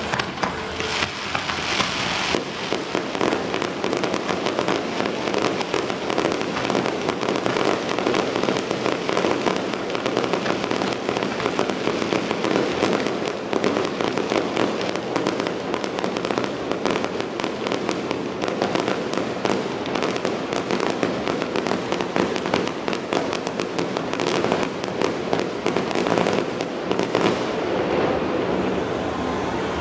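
Fireworks display going off: a dense, unbroken crackle of many small bangs a second.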